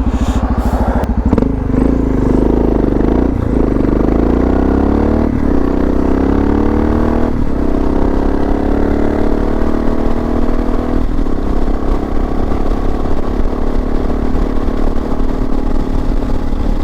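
Suzuki DR650 single-cylinder motorcycle engine accelerating up through the gears. Its pitch climbs after each of several short gear-change breaks in the first half, then holds steady at cruising speed.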